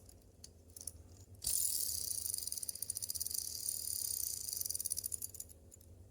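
A clone of the ACEdc Thunder linkage fidget spinner spinning: a fast, high rattle from its linkage starts suddenly about a second and a half in and dies away near the end. A few light clicks come before it.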